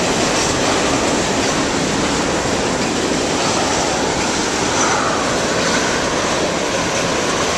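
A long freight train of oil tank cars rolling past, a steady rumble and hiss of steel wheels on the rails.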